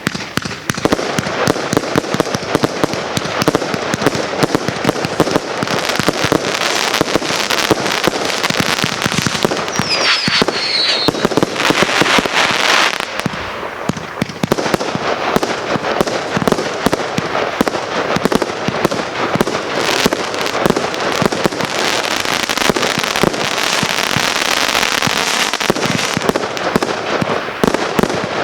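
Consumer firework cakes firing a continuous barrage: rapid shots and bursts with dense crackling throughout. A short falling whistle sounds about ten seconds in.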